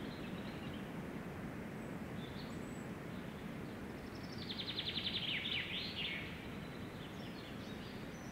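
A songbird sings a rapid trill of quick repeated high notes ending in a few falling notes, about four to six seconds in, with a few faint chirps before and after, over a steady low outdoor background noise.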